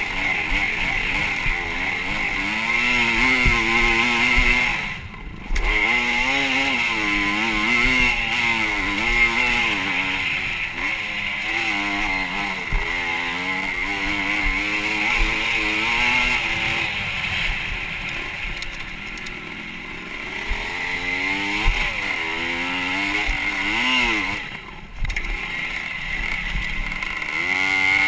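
Motocross bike's engine heard from a camera on the bike itself, revving up and falling back again and again as it rides the dirt track. Twice the engine note drops away briefly, about five seconds in and near the end.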